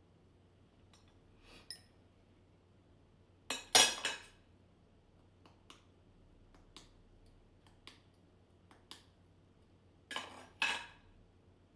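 Kitchen utensils and dishes clinking and clattering: two short bursts of clatter, the louder one about four seconds in and another near the end, with a few light single clicks between.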